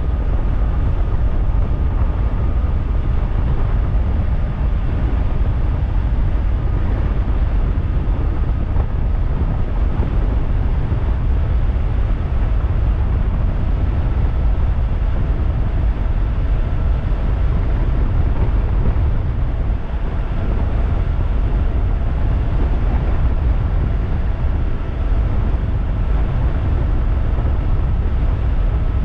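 Steady wind rush on the microphone from an e-bike riding at speed, with tyre noise under it. A faint thin whine, probably from the 3000-watt electric motor, rises slightly in pitch as the bike gains speed.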